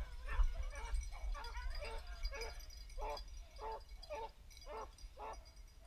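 Beagles baying, a steady run of short yelping calls about two a second, the sound of the hounds running a rabbit.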